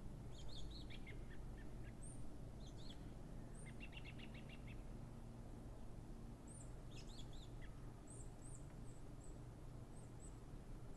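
Small songbirds calling: scattered short chirps, a quick trill of about ten notes around four seconds in, and thin high chirps through the second half, over a low steady background rumble.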